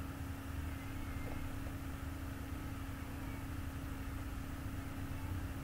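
Steady low machine hum with one constant droning tone and a low rumble beneath, unchanging throughout.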